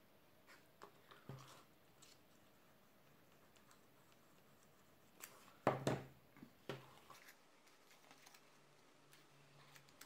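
Quiet handling of folded cardstock and a plastic liquid-glue bottle: small taps and paper rustles, with one louder clack a little before six seconds in as the glue bottle is put down on the work mat.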